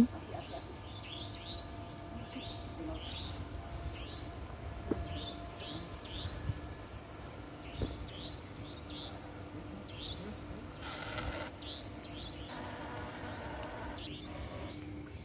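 Outdoor insect drone: two steady high-pitched tones, with a run of short rising chirps repeating irregularly every half second or so over it, and a few soft knocks.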